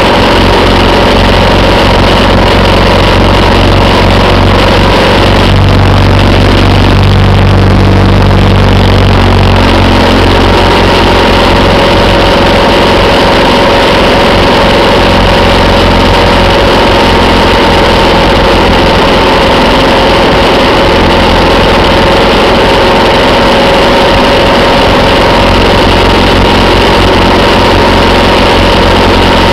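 A motorcycle engine running at highway cruising speed, mixed with heavy, steady wind rush on the microphone. The engine note shifts briefly about six seconds in, then settles back.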